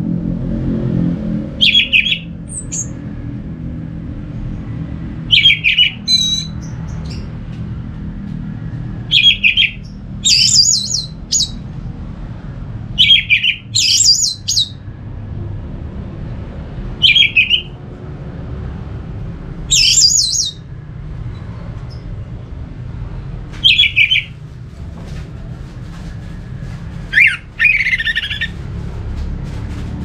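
Orange-headed thrush giving short loud calls about every three to four seconds, some followed by higher, thinner notes, over a steady low background rumble.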